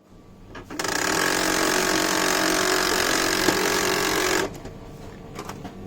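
HP LaserJet M107 laser printer making a loud, abnormal grinding noise for about three and a half seconds, which stops abruptly and gives way to a quieter running sound with a few clicks.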